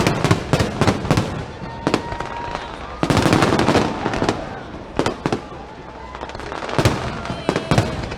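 Aerial fireworks going off: a string of sharp bangs and cracks, with a dense crackling run about three seconds in and a faint whistle about two seconds in.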